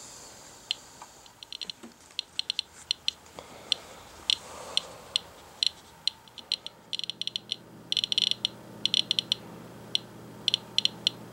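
Radiation Alert Inspector Geiger counter chirping at random intervals, singly and in quick clusters, one chirp for each detected count. The counts come from radon progeny washed out by rain onto a wipe sample, and they get through a plastic sheet at an elevated rate of over 300 counts per minute.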